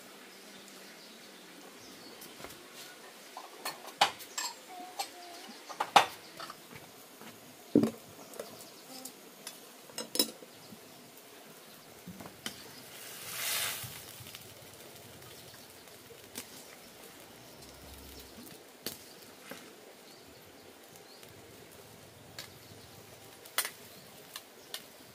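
Scattered clinks and knocks of dishes and cooking utensils being handled, the loudest about six seconds in, with a brief hiss about halfway through.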